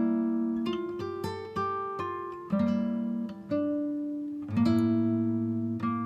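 Background music: acoustic guitar playing plucked and strummed chords, a new chord struck about once a second and left to ring down.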